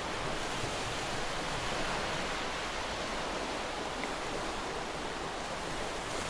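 Steady wash of ocean surf: an even rushing hiss with no breaks or clear beats.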